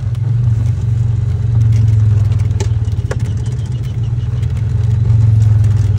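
ATV engine running steadily at low speed, with rattling and clatter from the machine as it rolls over the rough, freshly cut dirt trail.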